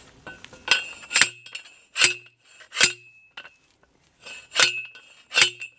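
Manual T-post driver slamming down onto a six-foot steel T-post, driving it into the ground. Ringing metallic clangs come roughly one a second, with a short pause about halfway.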